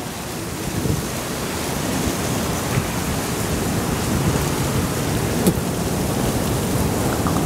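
Heavy downpour of rain falling: a steady, loud rush of noise.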